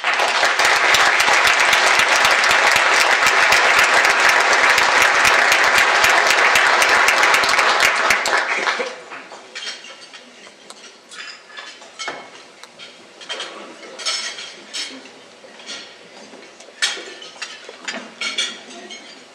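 An audience applauding loudly, a dense crackle of many hands clapping that stops about eight seconds in. After that, scattered small clicks and knocks over a low room murmur.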